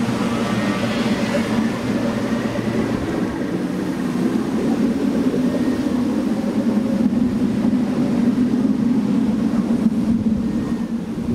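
Low, steady electronic drone with a few held tones above it and faint high gliding tones, played through the loudspeakers built into The Morning Line sound-art pavilion.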